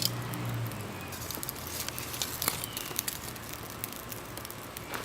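Charcoal forge fire crackling, with scattered sharp pops, as the rubber coating burns off a coil spring laid in it.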